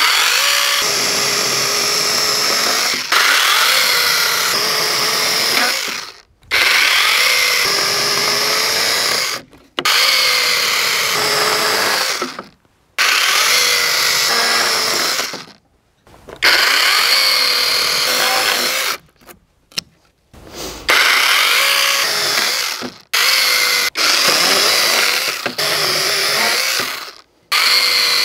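Hychika CS18D 18-volt brushless cordless mini chainsaw with an 8-inch bar cutting through a log in about ten runs of two to three seconds each. The motor's whine sags in pitch as the chain bites into the wood and recovers, and each run cuts off sharply, with short pauses between.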